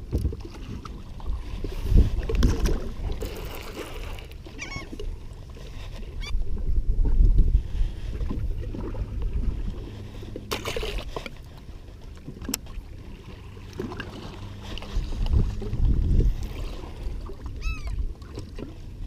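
Wind rumbling on the camera microphone and water lapping against a bass boat's hull, with a few knocks and, near the end, a quick run of short bird calls.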